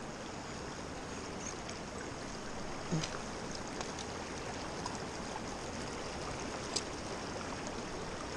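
Shallow mountain creek running over rocks: a steady rush of flowing water, with a couple of faint short clicks.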